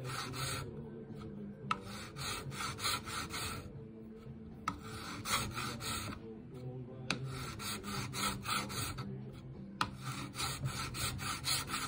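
Fine-tooth hand file scraping across a metal beavertail grip safety and pistol frame in runs of quick even strokes, about three a second, with short pauses between the runs. The file is taking off the last thousandth of an inch to bring the grip safety flush with the frame.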